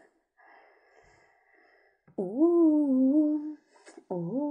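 A girl's voice humming two long held notes, each sliding up at its start, one about two seconds in and another near the end.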